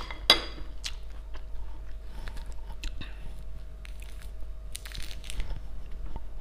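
Close eating sounds of pomelo: chewing the juicy pulp and peeling the papery membrane off a pomelo segment by hand, with scattered small clicks, a sharp click just after the start, and a short tearing rustle about five seconds in.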